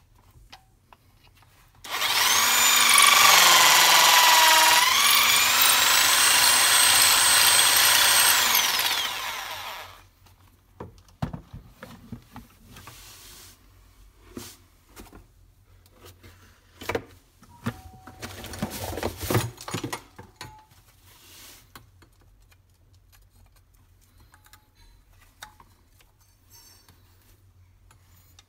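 Electric drill with a diamond-tipped bit grinding into marble for about eight seconds. Its high motor whine climbs as it speeds up and drops away as it stops. Then come scattered clicks, knocks and scrapes of the stone and tool being handled.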